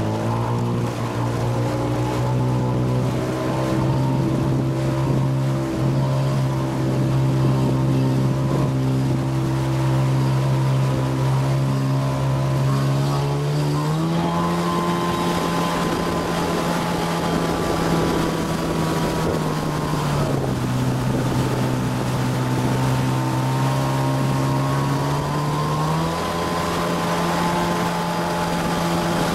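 Motorboat engine running steadily while towing a tube, with the rush of the churning wake and wind on the microphone. The engine speeds up about halfway through, eases back a few seconds later, then speeds up again near the end.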